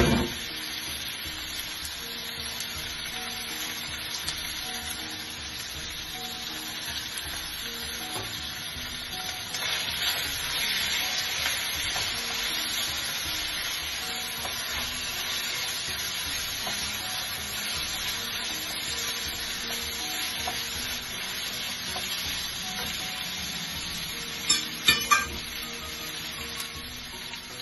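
Diced chicken frying and sizzling in a nonstick frying pan as it is stirred. The sizzle grows louder about ten seconds in, and a few utensil clinks against the pan come near the end.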